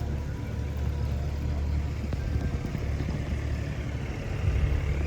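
Engine of a piece of heavy construction equipment running steadily with a low rumble, growing a little louder about four and a half seconds in.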